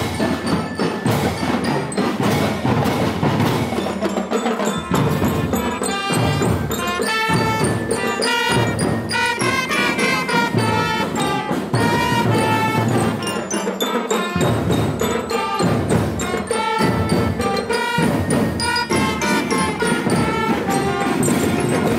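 Marching-band bell lyres (marching glockenspiels) struck with mallets, playing a quick melody of ringing metal notes, with trumpets playing along.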